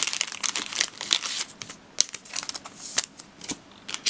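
Trading cards being handled against thin plastic sleeves and a plastic bag: an irregular run of light plastic crinkles and card ticks.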